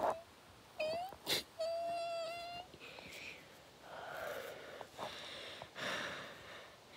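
A boy's wordless voice through a shirt pulled over his mouth: a short rising hum, a sharp click, a held steady hum of about a second, then several breathy exhales.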